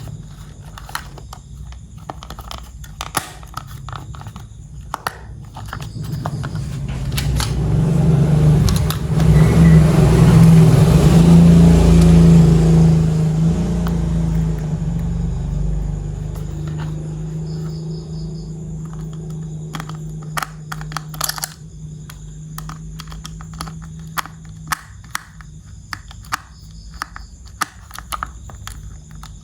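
A motor's low hum that swells to a loud peak over several seconds and then slowly fades, with small clicks and knocks throughout.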